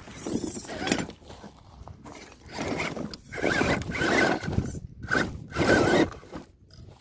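FTX Kanyon RC crawler's electric motor and gears whining in several short bursts of throttle as the truck crawls over rock, with the loudest bursts in the second half.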